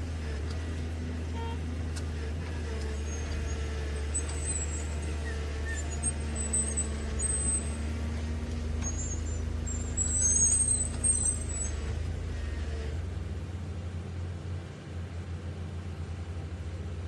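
Remote-control toy tracked dump truck running as it crawls through sand: a steady low drone with faint held whining tones. There are a few short high chirps about four seconds in, and again around ten seconds in, where it is loudest. The drone thins out near the end.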